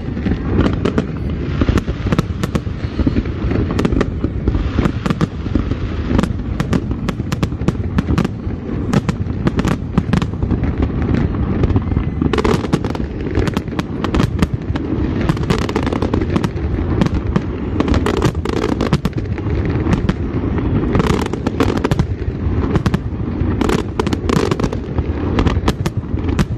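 Aerial fireworks display: a dense, continuous barrage of shell bursts and crackling, many sharp bangs in quick succession over a steady low rumble.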